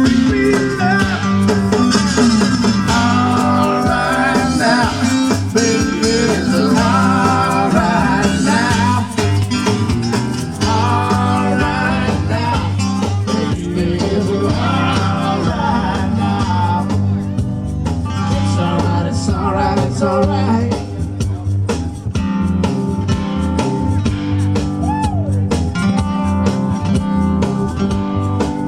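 Blues-rock music with guitar, bass and drums and a steady beat, with a bending melodic lead line over it.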